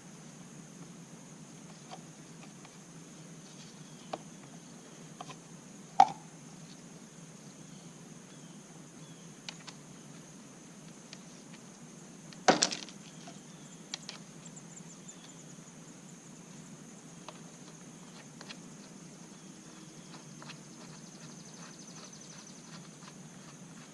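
Hands handling and fitting plastic string trimmer head parts: scattered clicks and light knocks, with two sharper knocks about a quarter and halfway through, and short runs of faint quick ticking later on.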